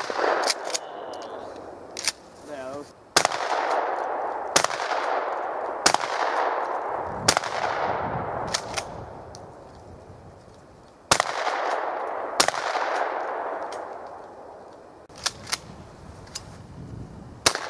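Shotgun shots at thrown clay targets, about fifteen reports spaced unevenly, some in quick pairs. The louder ones are each followed by a long fading echo.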